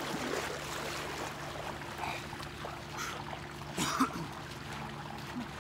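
Pool water churning from a fountain jet at the surface, with water sloshing around a person wading in. A steady low hum runs underneath, with a few short splashes around the middle.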